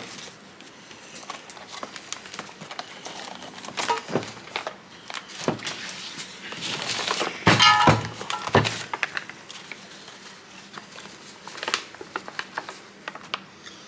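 Scattered knocks, clicks and rustling as suspension parts and urethane bushings are handled on a workbench. There is a brief high squeak about seven and a half seconds in.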